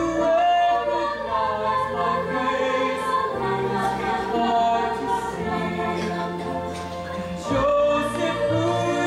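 Musical-theatre number: a group of voices singing together with piano accompaniment.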